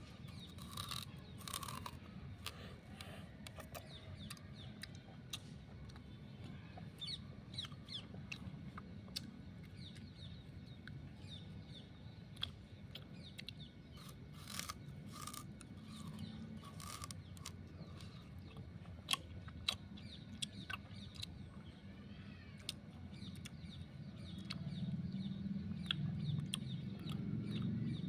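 Raw sugarcane being bitten and chewed: repeated crunches and cracks of the fibrous stalk, with a few sharper, louder snaps.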